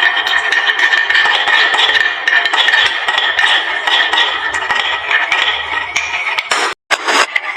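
Many glass marbles rolling and clattering down a wooden slope track, a dense run of clicks and knocks. The sound cuts out for an instant near the end.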